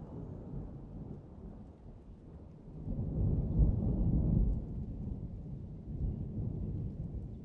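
Low rumbling noise that swells about three seconds in and eases off a second or two later.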